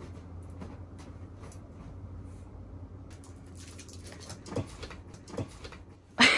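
Faint rustling and scattered light clicks of something being handled, with two soft thumps in the second half and the start of a short, loud, bending squeak right at the end.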